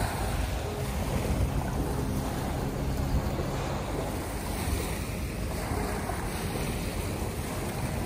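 Small bay waves lapping and breaking on a sandy, pebbly shore, with steady wind noise on the microphone.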